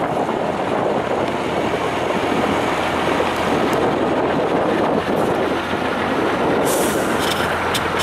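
Heavy diesel engine of an eight-wheeled off-road trial truck running steadily under load as it crawls over rough sandy ground. A short hiss and a couple of clicks come near the end.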